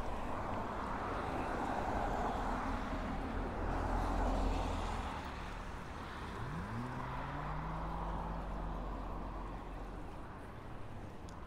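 Road traffic: a vehicle passes with a swell of tyre and engine noise that peaks about four seconds in and then fades. About six and a half seconds in, another engine rises in pitch as it accelerates, then holds a steady hum.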